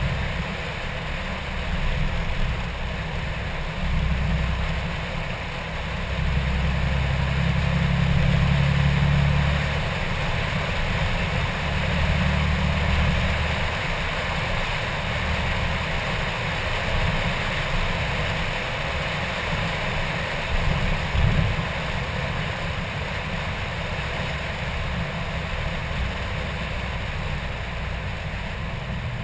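Wind buffeting the microphone of a camera mounted on a moving car, a rough uneven rumble over the steady rush of wind and road noise. It is loudest a few seconds in and again about twelve seconds in. There is no audible revving.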